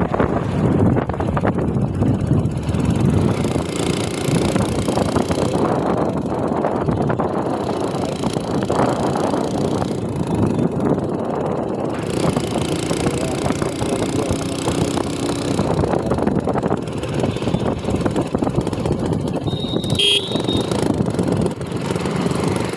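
Motorcycle running at road speed, its engine under a steady rush of wind and road noise. A short high-pitched tone sounds about twenty seconds in.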